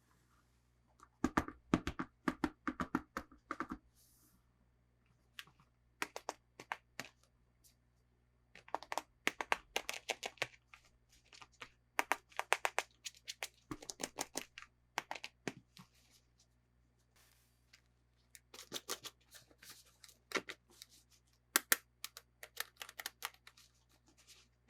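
Toy packaging being handled and opened by hand: bursts of crackling, clicking and tearing, several runs separated by short pauses.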